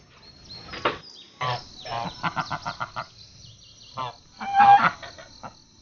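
Flock of white domestic geese honking: a quick run of short honks, then a louder honking call near the end.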